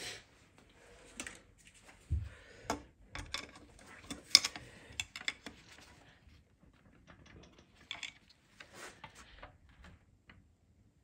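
Irregular clicks and clinks of clutch plates being worked out of a ZF 8HP automatic transmission's clutch pack, with a dull knock about two seconds in and the sharpest click about four seconds in.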